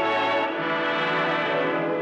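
Orchestral music led by brass, holding sustained chords: the radio program's closing music after the final appeal.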